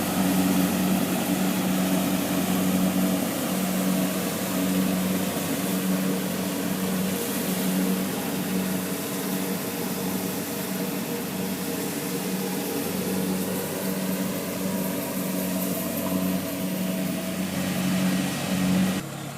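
Kubota DC70 Plus combine harvester running steadily under load, its engine drone pulsing about once a second. The sound drops off suddenly near the end.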